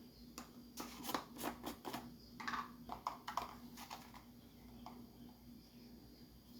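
A run of light clicks and taps, a spoon scooping salt and knocking against the container, over about the first four seconds, with a few short scrapes. A faint steady hum sits underneath.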